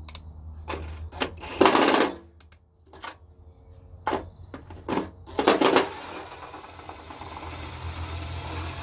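Cordless impact gun hammering on a rusty fender flare nut in short rattling bursts, then running more steadily over the last few seconds as the nut works loose.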